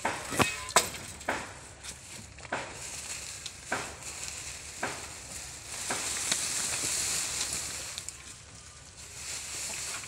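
Armful of fresh-cut grass fodder rustling and crackling as it is carried and pushed along, with scattered sharp snaps of stalks and a longer, louder swish a little past the middle.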